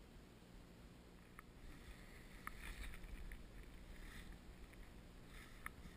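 Faint river water splashing and lapping close to the microphone, with a few light clicks from handling the fly rod and line.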